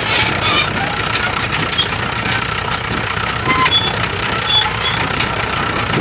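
Fordson Major County crawler's engine running steadily under load while pulling a plough, with an even, rapid firing beat.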